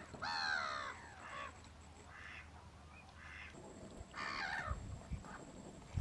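Mallards quacking: several short calls spread over the first five seconds, the first one the loudest.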